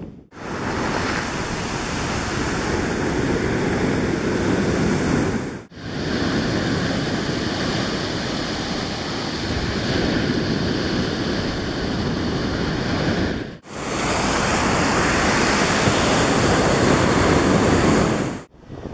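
Sea surf breaking and washing up a pebbly beach, a steady loud rush of waves with some wind on the microphone. It drops out briefly twice where the shots change.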